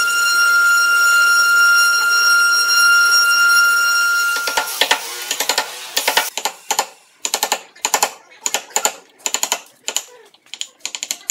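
Multi-spindle CNC router carving hardwood, its spindles giving a steady high whine. About four and a half seconds in this gives way to a mallet driving a carving chisel into wood: quick runs of sharp taps with short gaps between them.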